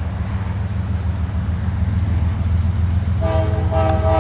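Approaching diesel passenger train with a steady low rumble. About three seconds in, the locomotive's multi-chime air horn starts a chord that is still held at the end.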